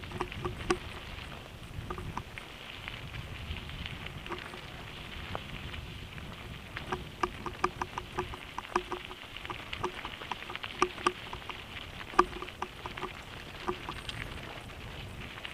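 Mountain bike rolling downhill on a loose gravel road: tyres crunching over stones, with many sharp clicks and rattles from the bike over the bumps, thicker in the second half, and low wind rumble on the microphone.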